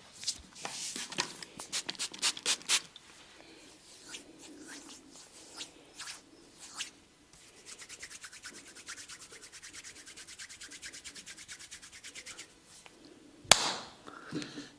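Massage strokes rubbing briskly over skin. There is a quick run of sharp strokes at first, then a fast, even rubbing rhythm of about ten strokes a second for several seconds. One sudden, loud, sharp hit comes near the end.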